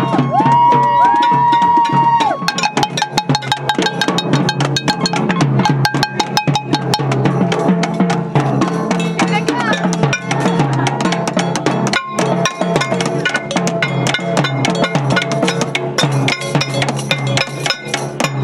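A crowd's noise-making: a blown noisemaker holds one tone for about two seconds, then dense, irregular banging on drums and other percussion continues, with voices mixed in.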